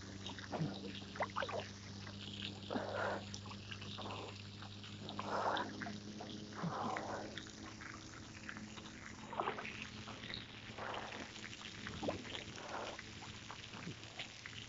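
Lake water sloshing and splashing with a swimmer's breaststroke strokes, in short irregular splashes every second or two over a faint steady low hum.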